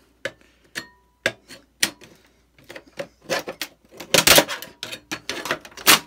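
Sharp clicks, knocks and rattles of a screwdriver and the hard-drive cage being worked loose in a Compaq desktop's drive bay. The clicks come singly at first, then turn into quicker, louder clattering over the last few seconds as the cage comes free.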